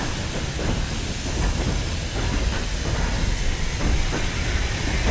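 Steam tank locomotive 47298, an LMS Fowler 3F 'Jinty' 0-6-0T, running slowly into the platform with steam hissing, a low rumble and scattered light knocks. It grows steadily louder as it approaches.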